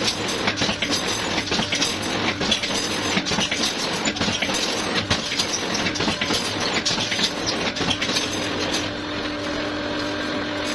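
Automatic rebar straightening and stirrup-bending machine running, with a continuous dense metallic clatter and rattling. Near the end the clatter eases and a steady hum takes over.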